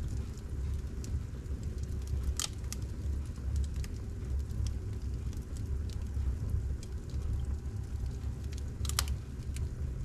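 Fire in a fireplace crackling, with scattered small ticks over a steady low rumble. Two louder pops come about two and a half seconds in and near the end.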